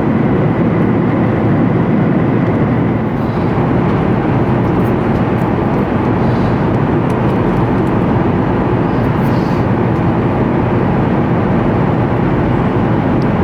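Steady cabin noise inside a Boeing 737 MAX 8 in flight on descent: a constant low rumble of airflow and engine noise that holds level throughout.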